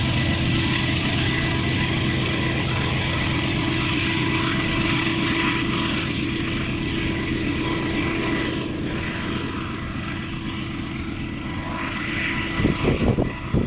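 Union Pacific diesel-electric freight locomotives running with a steady engine drone as a train of coal hoppers passes, easing off a little in the second half. Near the end come a few low thumps.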